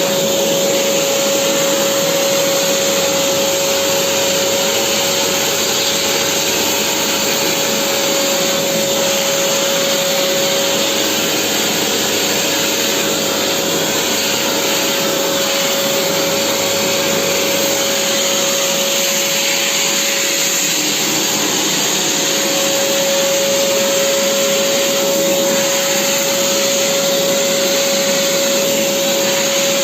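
Vacuum cleaner running steadily: a constant rushing hiss with a steady motor whine.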